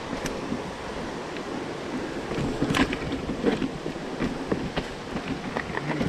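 Mountain bike riding along a wooden boardwalk and onto a wooden bridge: steady wind rush over the action camera's microphone with tyre rumble, and scattered clicks and knocks from the bike and the boards, the sharpest one near the middle.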